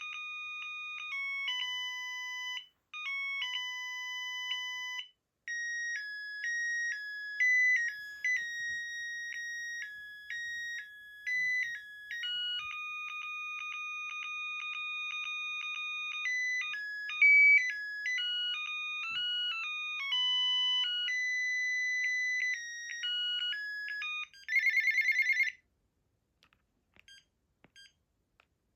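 Panasonic KX-TGB210 cordless phone playing a polyphonic electronic ringtone melody of bright, beepy notes. About 25 s in it ends with a brief rapid trill and cuts off, leaving a few faint clicks.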